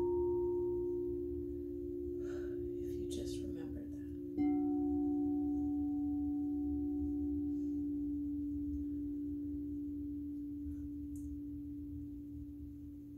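Frosted crystal singing bowl struck with a mallet and ringing in a steady, sustained hum. It is struck again about four seconds in, and the ring then slowly fades.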